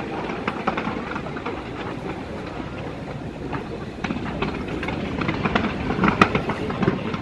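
Fireworks fired off the sides of a skyscraper, heard from the street below: a continuous rumble of distant bangs mixed with sharper crackling pops. The loudest crack comes about six seconds in.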